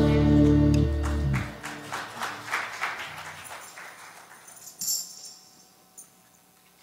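A praise band's closing chord on electric guitars, bass, drums and piano rings out and stops about a second and a half in. A tambourine keeps jingling in light, fading shakes afterwards, with one last brighter rattle near five seconds.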